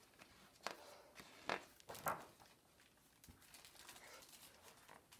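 Soft rustles and flaps of paper as the pages of a large picture book are turned by hand, with three short strokes in the first two seconds and fainter rustling near the end.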